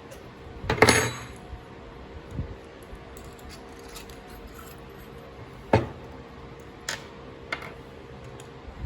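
Metal parts of a gravity filler's filling head clinking and knocking as they are handled and taken apart. There are a handful of separate clinks, the loudest a ringing metallic clink about a second in.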